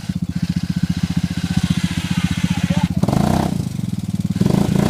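ATV engine running with a steady, even low beat.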